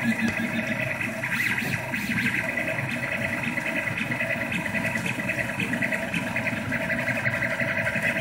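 Rostock MAX delta 3D printer running a print: its stepper motors whir and chirp in quick-changing pitches as the print head makes rapid short moves, over the steady hum of the print-head cooling fan.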